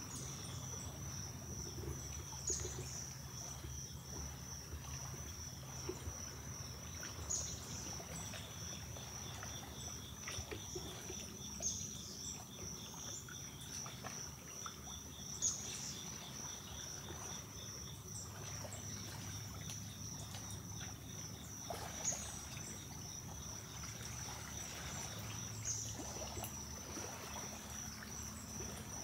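Steady high-pitched pulsing chorus of insects, with a second, lower pulsing trill joining for several seconds in the middle. A handful of brief sharp sounds stand out every four seconds or so.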